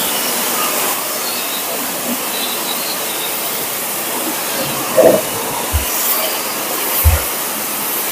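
High-pressure water jet from a Hotstarr HS 200 commercial pressure washer blasting mud off a tractor trailer's tyre: a steady, loud hiss of spray. A few brief low thumps come in the second half.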